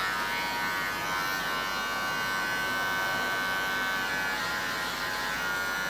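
Electric hair clippers running with a steady buzz, shaving the sides and back of a head down to zero.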